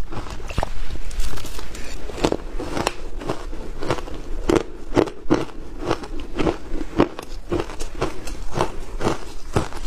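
Shaved ice being crunched and chewed in the mouth: a close, irregular run of crisp crackles and crunches, several a second.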